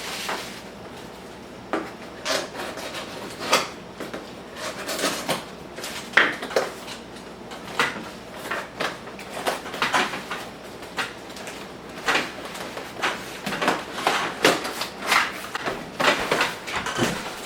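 Packaging being handled and unpacked: many irregular knocks, clatters and scrapes of boxes and contents being moved.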